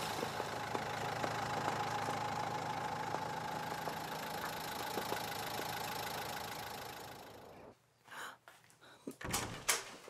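Car engine idling steadily, fading out about three-quarters of the way through; then a few short knocks near the end.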